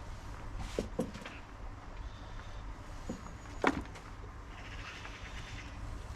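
Handling of soil and rotten potatoes in a planting container: a few short knocks, the loudest about two-thirds of the way through, and a brief rustle near the end, over a steady low rumble.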